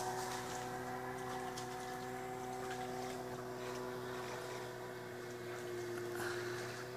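Steady engine hum holding one even pitch throughout, with faint light splashes of water.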